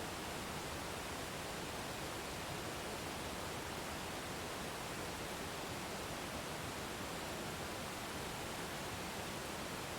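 Waterfall rushing: a steady, even noise with no breaks or changes.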